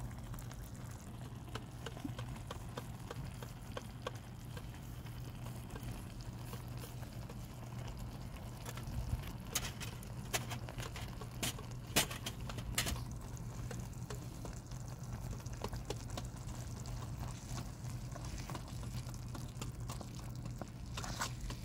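Chicken curry simmering in a miniature steel pot over a small open flame: a low, steady bubbling with fine crackling, and a few sharp clicks around the middle.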